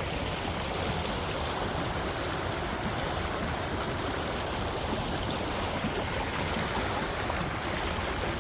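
Creek water flowing, a steady rushing.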